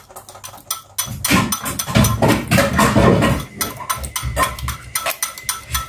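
Wire whisk beating eggs by hand in a ceramic bowl: a rapid, uneven run of clicks and scrapes as the wires strike the bowl.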